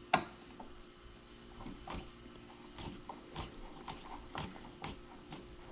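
Insulated screwdriver turning out the screws of an electrical outlet, a sharp click near the start and then short clicks and scrapes about twice a second as the screws turn.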